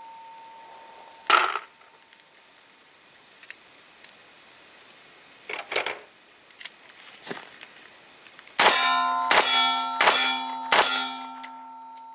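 Metal strikes from a revolver being worked during primer testing: a few isolated sharp snaps, then four loud clangs close together near the end that ring on.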